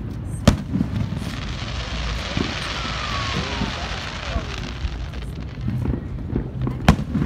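Aerial fireworks: a sharp bang about half a second in, a long hiss through the middle, and two more bangs near the end.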